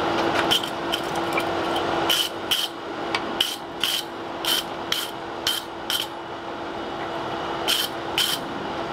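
Hand hammer striking glowing-hot axe steel on an anvil while forging the welded bit: about a dozen blows, mostly in pairs about half a second apart, each with a short metallic ring, over a steady hum.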